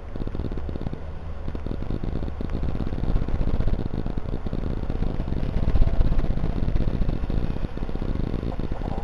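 Hens pecking and scratching at soil close to the microphone: a fast, irregular patter of small ticks and scuffs over a low rumble that swells to its loudest about two-thirds of the way through.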